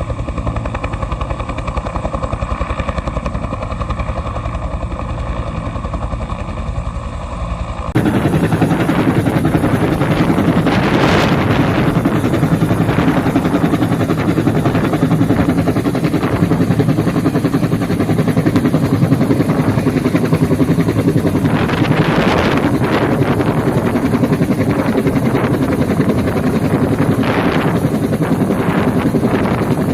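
Bell 212 helicopter running, its turbine whine over the fast beat of the rotor. About 8 seconds in the sound changes suddenly to a louder, rougher rush, with rotor downwash buffeting the microphone in gusts.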